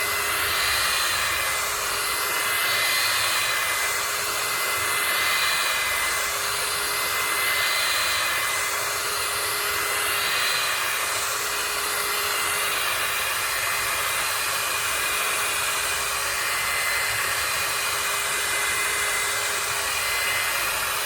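Steady whirring of a small fan or blower motor, with a hum and a few steady high tones. For the first half it swells and fades about every two and a half seconds, then holds steady.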